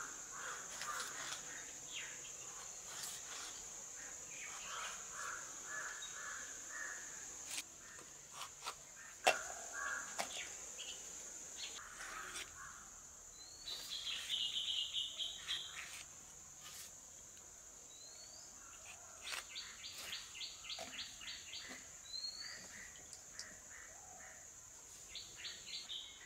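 Birds calling: chirps, short rising whistles and quick runs of repeated notes, with caws among them, over a steady high-pitched whine. Scattered sharp clicks of a curved iron knife cutting green bell peppers, the loudest about nine seconds in.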